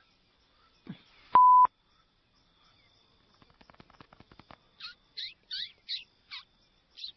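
A single short electronic beep about a second and a half in, the loudest sound. Then a run of quick faint clicks, followed by a series of short bird-like chirps, each sweeping down in pitch.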